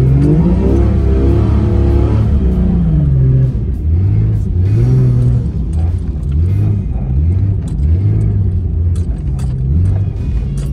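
Vehicle engine revving in soft sand: one long rev up and back down, then a string of short throttle blips, over a steady low rumble with scattered rattles.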